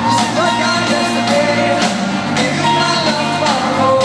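Live pop-rock band playing with a male lead singer and drums, loud and steady, heard from the crowd in a large arena hall.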